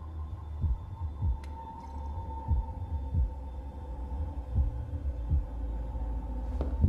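Tense film score: slow, low heartbeat-like thumps pulse under a steady high drone.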